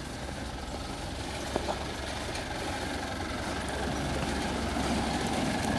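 Old pickup truck's engine running as it comes down a cobblestone street, growing steadily louder as it approaches.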